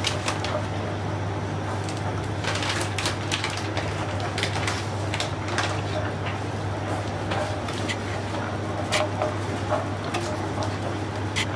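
A steel ladle stirring thin gram-flour (besan) batter in a non-stick frying pan, knocking and scraping against the pan in irregular clicks, over a steady low hum.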